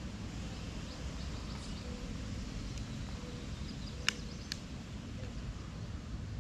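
Outdoor background with a steady low rumble and a few faint high chirps, broken by two sharp clicks about four seconds in, half a second apart.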